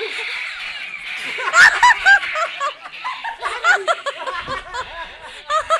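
People laughing: a string of short chuckles, loudest about a second and a half in, then lighter snickers.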